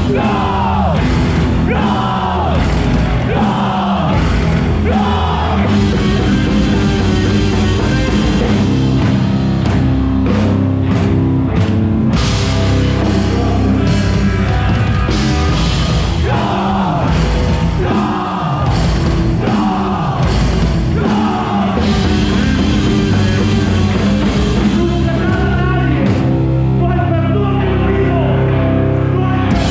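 Rock band playing loud, heavy music with drums and distorted instruments. It has a run of falling glides, about one a second, in the first few seconds and again midway through.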